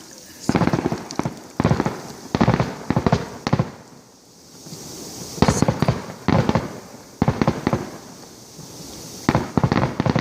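Fireworks display going off: repeated clusters of rapid bangs and crackles, a quieter lull a little before halfway, then more clusters.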